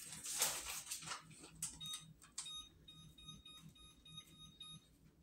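Faint electronic beeping: a fast run of short, high beeps, about five a second, starting about two seconds in. Before it come soft handling noises from hands working pizza dough on a metal pan.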